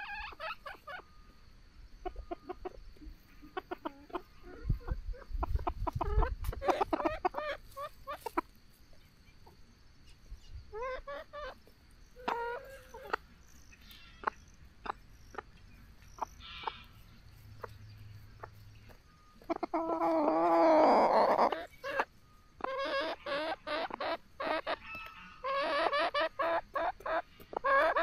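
Small chickens clucking on and off, with a louder stretch of squawking about two-thirds of the way through and a quick run of clucks near the end. Short light taps come in between.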